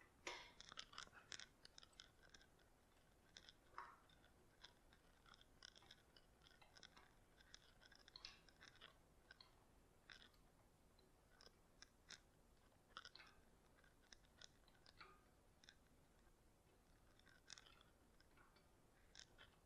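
Faint, irregular clicks and light metallic ticks from a hydraulic engine hoist being worked to raise the engine. There is a quick cluster in the first second, then scattered ticks, against a near-silent background.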